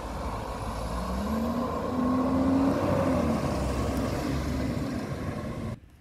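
Garbage truck's diesel engine running as it drives along the street, its pitch rising about a second in, holding, then falling away. The sound cuts off suddenly near the end.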